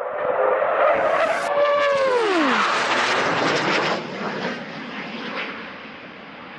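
Jet fly-by sound effect: a loud roar with a whine that holds, then drops steeply in pitch about two seconds in as the jet passes, after which the roar fades away.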